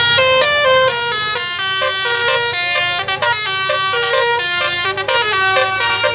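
Indonesian bus 'basuri' (telolet) musical air horns playing a fast melody of stepped notes, with more than one horn line overlapping, as two buses trade horn tunes in a horn battle. The tune breaks off briefly twice.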